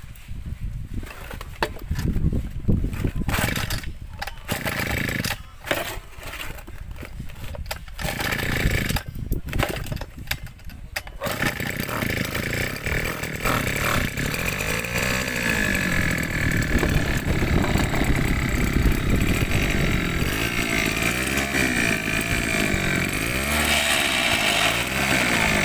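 Small air-cooled sprayer engine fitted with a homemade reduction gearbox, pull-started with several tugs of the recoil starter before catching about eleven seconds in. It then runs continuously, revving up and down, with the gearbox noisy, which the builder takes as a sign that it needs more grease.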